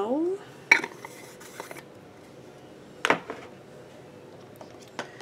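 Makeup tools and products being picked up and set down, making small clicks and knocks. There is a sharper clack about a second in and another about three seconds in.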